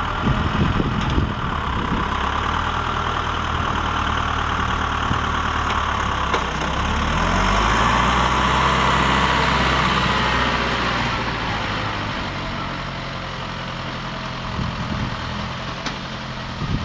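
Diesel engine running, rising in pitch and getting louder about seven seconds in, then easing back down near the end.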